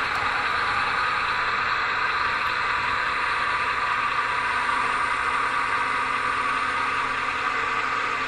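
HO-scale Märklin model train running past: a steady rolling and motor noise of wheels on the track, even in level throughout.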